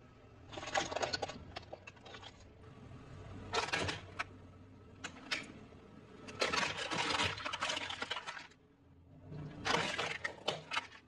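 Hard plastic toys cracking and crunching as a car tyre rolls over them, in several separate bursts of crackling and snapping a second or two apart.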